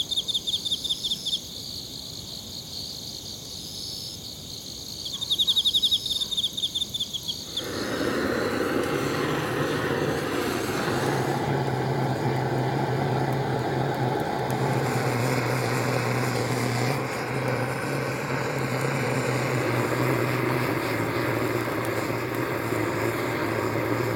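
Crickets chirping in fast trills; about eight seconds in, a handheld butane torch starts blowing a steady hissing flame into the firewood in a fire pit, and keeps going with a low hum under the hiss.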